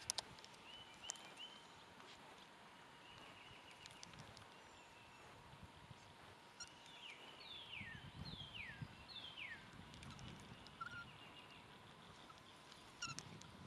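Quiet lakeside ambience with birds calling: a short chattering trill about a second in and again past the middle, then three clear falling whistles in quick succession. A few light clicks at the start and near the end.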